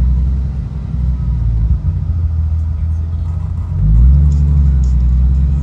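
Car engine running with a deep, steady low drone; about four seconds in its note rises and grows louder as the revs pick up, then holds.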